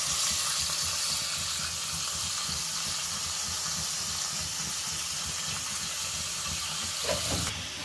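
Chicken pieces frying in hot oil in a wok: a steady sizzle.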